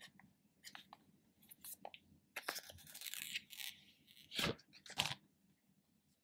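Protective paper film being peeled off a new iPhone 12 Pro's screen: small handling clicks and rustles, a longer crackling peel, then two sharp, louder crinkles of the film near the end.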